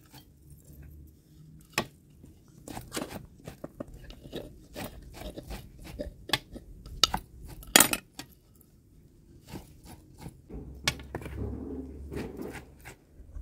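Scattered knocks and clinks of a wooden mortar and pestle and tableware being handled and set down on a metal tray, the loudest about eight seconds in. Near the end, a knife chopping fresh herbs on a wooden board.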